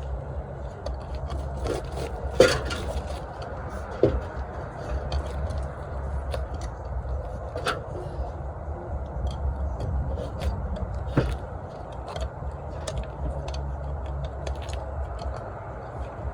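Metal clanks and scrapes as a heavy truck wheel and tire are worked onto the steer-axle hub. There are scattered knocks throughout, the sharpest about two and a half seconds in and again around four seconds, over a steady low rumble.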